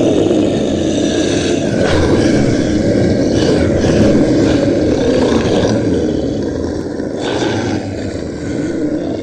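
Loud, continuous creature roars from film-style prehistoric-monster footage: a dense, rumbling roar with fresh surges about two, three and a half, five and seven seconds in.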